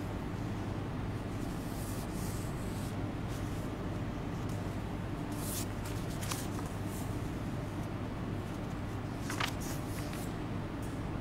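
Paper rustling as the pages of a book are handled and turned close to a desk microphone, a few short crisp rustles over a steady low hum.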